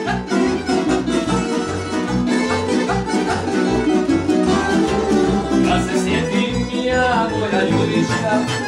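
Tamburica ensemble playing live: bračes and other tamburice plucked over a steady bass beat from a berde (tamburica double bass).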